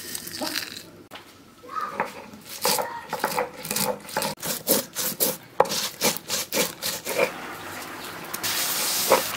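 Stone grinding slab and stone roller (sil-nora) crushing whole coriander seeds, black peppercorns and dried red chillies into a wet spice paste: a run of back-and-forth stone-on-stone scraping strokes, about three a second.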